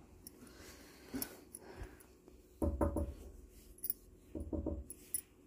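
Metallic clattering and knocking: a single click, then two short rattling bursts with a dull thud, about three seconds in and again near the end.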